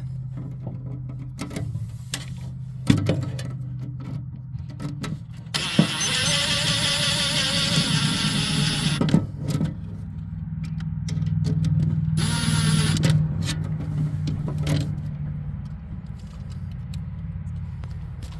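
Power screwdriver or cordless drill running twice, about three seconds and then about a second, to drive screws back in, among clicks and knocks of handling metal parts over a steady low hum.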